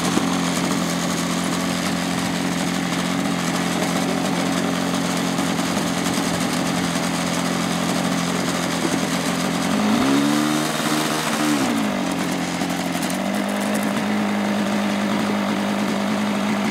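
O.S. .46 model glow engine idling steadily, revved up briefly about ten seconds in, then settling back to idle.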